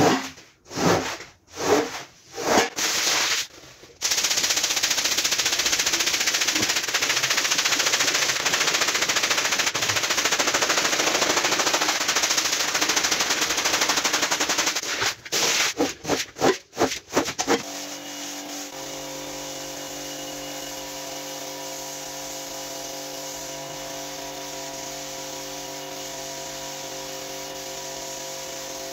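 Long-handled scrub brush scrubbing a soaked, soapy rug: several loud separate strokes, then a continuous wet scrubbing rush, then another quick run of strokes. About 18 seconds in this gives way to a quieter, steady hum with several held tones.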